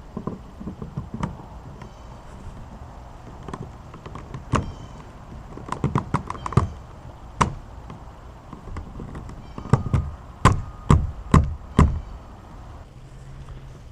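PVC pipe and tee fittings knocking and tapping as they are handled and pushed together to build a kayak cart frame. The knocks are scattered, and near the end come four loud ones about two a second.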